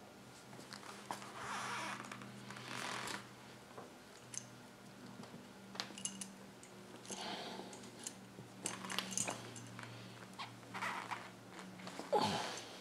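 Rubber fuel hose being forced by hand onto an oil-lubricated barbed fitting: faint rubbing and rustling with small clicks of handling, coming in several short spells.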